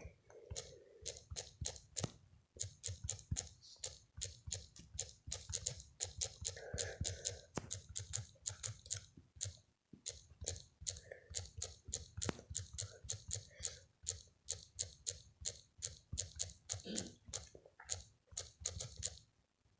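Rapid, close crunching clicks, several a second, with brief pauses, one of them about halfway through.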